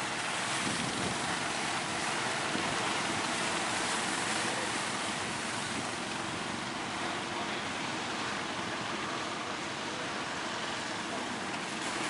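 Steady rush of ocean surf breaking near the shore, mixed with wind buffeting the microphone.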